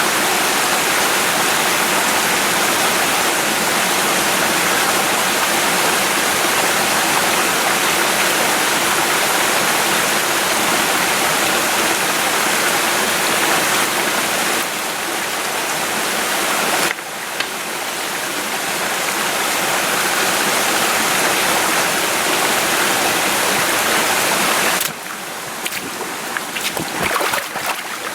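Small mountain stream rushing close by: a steady, loud hiss of moving water. It drops in level in steps, about 15 and 17 seconds in and again near 25 seconds, and turns uneven near the end.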